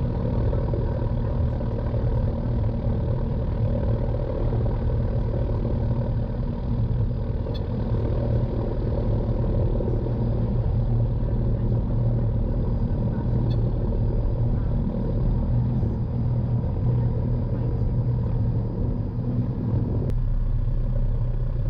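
Piper PA-46 Malibu's single piston engine and propeller running steadily at low taxi power.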